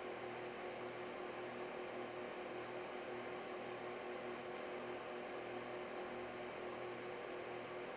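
Steady background hiss with a faint electrical hum: a low hum that pulses about twice a second under a steady higher tone.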